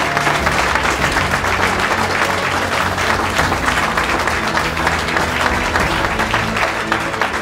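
A room of people applauding, many hands clapping steadily, with background music playing underneath.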